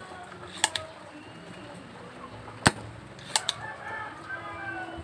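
Sharp clicks from desoldering work on an amplifier board, several in all, with short pitched calls in the background.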